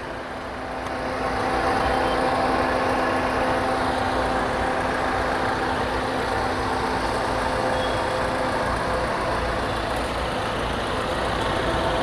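Maruti Swift petrol engine idling with its freshly replaced AC compressor engaged and the radiator fan running, while the AC system is charged with refrigerant gas. The sound is a steady mechanical running noise with a low hum. It swells slightly about a second in and then holds even.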